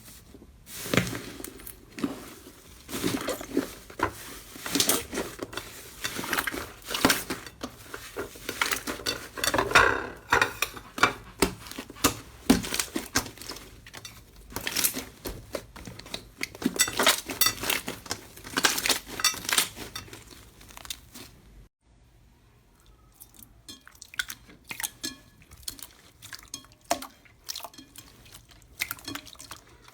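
Slime being pressed and squeezed by hand, giving a dense run of crackles and small pops. About two-thirds of the way through it stops abruptly, and a quieter, sparser run of clicks and pops follows.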